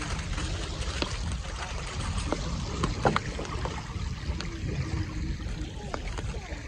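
Steady low wind rumble on the microphone, with scattered light clicks and crinkles as a seasoning shaker is set down and a trout is handled on aluminium foil; the sharpest click comes about three seconds in.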